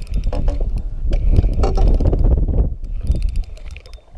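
Fishing reel ticking in quick runs of clicks as line is worked, over a low wind rumble on the microphone.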